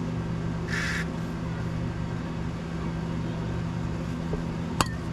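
A steady low machine hum runs underneath. About a second in comes a short hiss, and near the end a single sharp metallic click.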